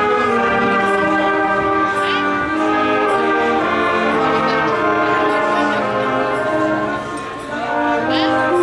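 Wind band playing together, with clarinets, saxophones, trombones and trumpets sounding sustained chords. The volume dips briefly about seven seconds in.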